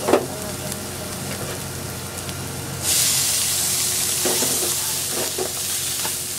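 Onions and garlic frying in a nonstick pan with a spatula scraping; about three seconds in, a sudden louder sizzle as mushrooms are tipped into the hot oil, then the spatula stirs them through the frying.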